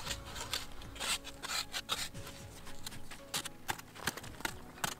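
A stick scraping and gouging into hard, dry earth in irregular strokes, with loose soil sliding down.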